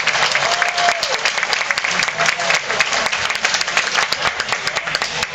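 Audience clapping: a dense round of applause from many hands, welcoming a gymnast onto the floor.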